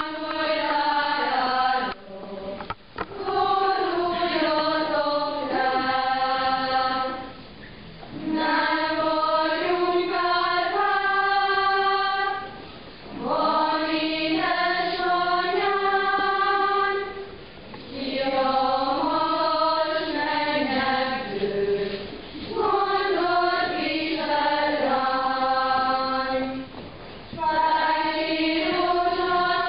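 Church congregation singing a hymn in unison and unaccompanied, a single melody line sung in phrases of about four seconds with short breaks for breath between them.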